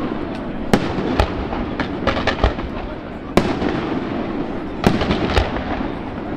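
Fireworks display: aerial shells bursting with sharp bangs at irregular intervals, several close together about two seconds in, over a steady hiss of crackling and background noise.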